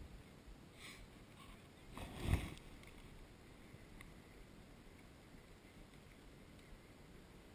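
Faint steady hiss picked up by a helmet-mounted action camera, with one brief low thump or rustle a little over two seconds in.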